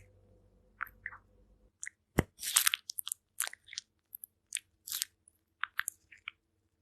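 Crunchy chewing: irregular sharp crunches of something crisp being bitten and chewed, starting about two seconds in.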